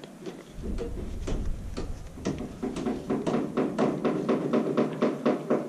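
Light metallic taps and clicks from a hand grease gun being handled and its barrel unscrewed from the head, ahead of refilling it with grease.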